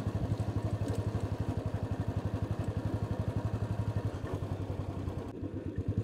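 Royal Enfield Bullet Standard's single-cylinder engine running at low revs on the move, its exhaust beats even and rapid, about a dozen a second. The note drops away briefly near the end.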